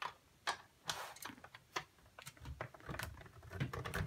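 Irregular plastic clicks and taps as the bezel is fitted and clipped onto a laptop's optical-bay hard drive caddy, with a few dull knocks of handling in the second half.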